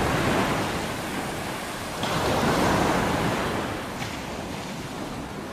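Ocean surf washing in, with one wave swelling about two seconds in, then slowly fading out.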